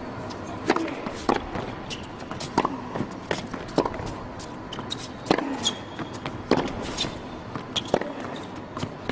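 Tennis rally: a ball struck back and forth by rackets, with sharp hits and bounces about a second apart, and a few short high squeaks of shoes on the court.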